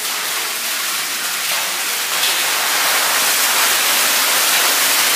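A strong jet of water gushing from a spout and splashing onto a tiled floor, a steady rushing that grows a little louder about two seconds in.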